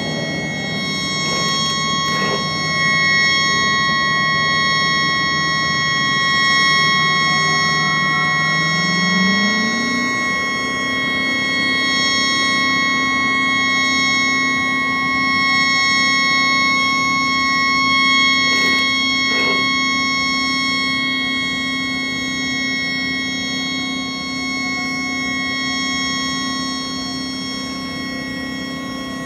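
A tugboat's stuck horn blowing on and on, sped up four times so that it sounds as a steady, high-pitched whine of several held tones. This horn has malfunctioned and will not shut off. A lower drone underneath glides up in pitch about a third of the way in, then holds steady.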